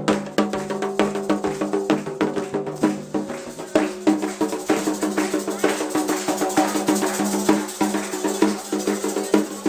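Candomblé ceremonial music: drums and sharp struck percussion played in a fast, even beat over held pitched notes. The music stops near the end.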